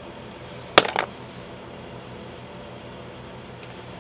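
Small butane lighter being worked: a sharp click about a second in, followed quickly by a softer click, and another click right at the end.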